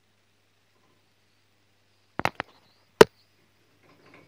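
Handling noise: after a quiet start, a quick cluster of sharp clicks about two seconds in, then one louder knock about a second later and a faint rustle near the end.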